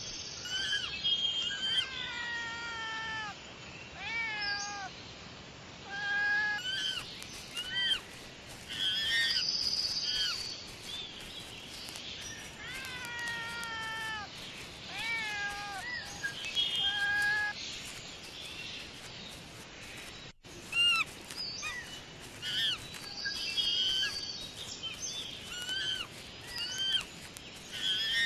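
A cat meowing over and over, a long run of short calls, many of them falling in pitch at the end.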